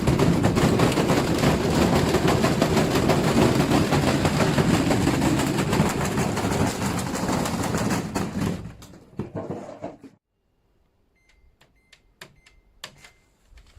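Washing machine being run to destruction: loud, rapid knocking and rattling that dies away after about eight seconds into near silence, followed by a few short beeps.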